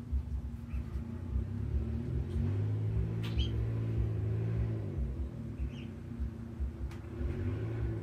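A low, steady engine-like hum swells in about two seconds in and fades after five, over a constant low rumble, with a couple of short high bird chirps.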